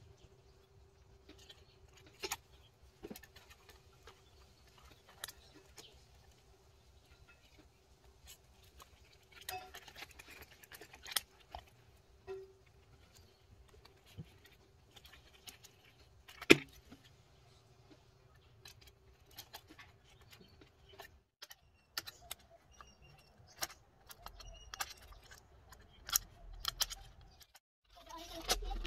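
Small clicks, taps and scrapes of cardboard puzzle pieces being handled and slotted together, scattered irregularly, with one sharp click a little past halfway. A faint steady hum runs underneath until about three-quarters through.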